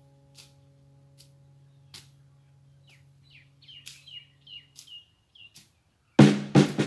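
A bird chirps a run of short falling notes over a low steady hum that fades out about five seconds in. Near the end a loud drum beat kicks in.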